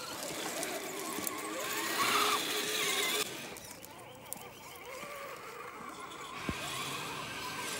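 Radio-controlled scale crawler's electric motor and geared drivetrain whirring as it drives, rising and falling, with a change in the sound about three seconds in.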